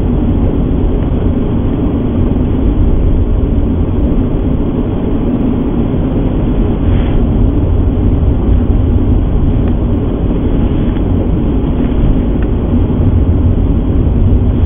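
Car driving on a snow-covered road, heard from inside the cabin: a loud, steady rumble of engine and tyres.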